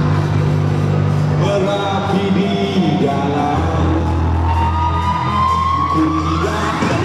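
Rock music with singing over steady bass. From about halfway through, a long held note climbs slowly, then slides sharply upward near the end.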